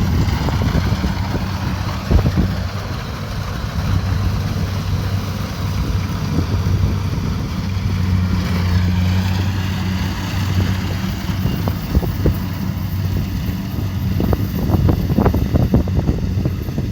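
Kubota DC70 Pro combine harvester's diesel engine running with a steady low hum. A quick run of sharp clicks and knocks comes near the end.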